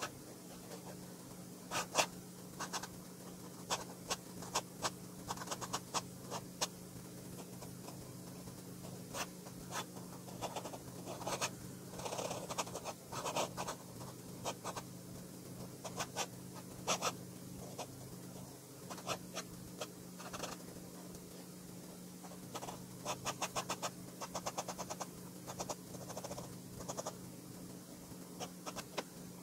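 An FPR Himalaya v2 ultra-flex-nib fountain pen scratching across sketchbook paper in short strokes, with quick runs of rapid back-and-forth hatching strokes.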